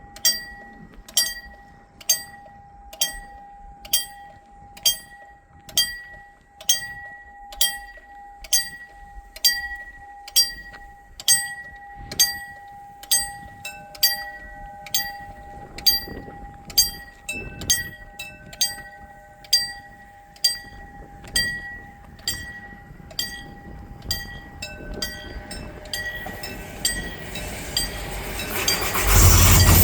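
Level-crossing warning bells ringing steadily at about one strike a second, a second bell at a different pitch joining about halfway through. Near the end a diesel-hauled Mugunghwa passenger train grows louder as it reaches the crossing.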